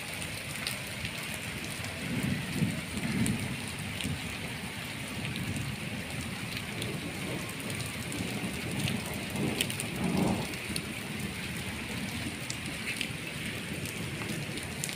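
Heavy rain and hail pelting wet concrete: a steady hiss of downpour with scattered sharp ticks, and a couple of low rumbles about two seconds in and again near ten seconds.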